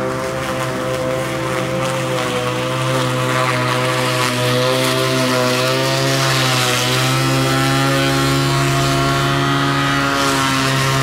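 Ruris RXi 3000 cordless battery lawn mower running while cutting grass: a steady whine from its electric motor and spinning blade. It grows louder about four seconds in as it comes close, and the pitch dips briefly a little past halfway.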